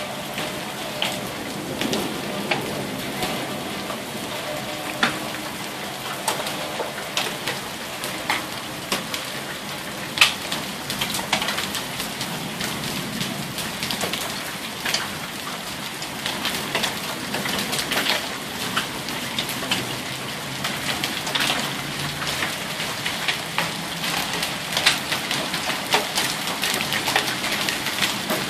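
Heavy thunderstorm rain falling steadily on pavement, standing water and lawn. Frequent sharp splats of single drops land close by, over a constant hiss.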